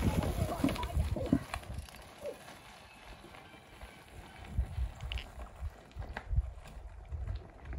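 Mountain bike rolling past close by over a rocky dirt trail, tyres crunching and the bike rattling, loud for about a second and a half, then fading as it rides away; a few dull thumps follow later.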